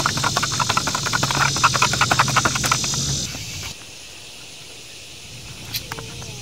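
A fork beating eggs in a foam bowl, a rapid run of scraping clicks that stops about three seconds in. Fainter handling sounds follow.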